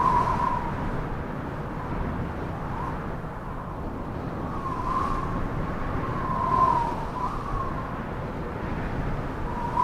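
Strong storm wind blowing, with a thin wavering whistle that swells and fades several times.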